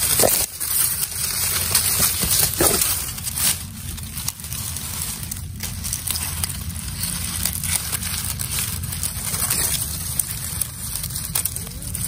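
Dry grass and dead leaves rustling and crackling in irregular bursts as a hand pushes through them, reaching for a bird hidden at the base of the clump.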